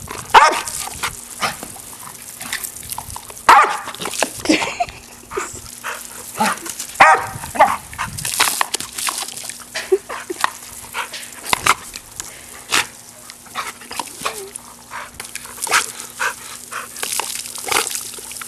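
Staffordshire Bull Terrier barking over and over in quick, irregular runs, worked up by spray from a water hose.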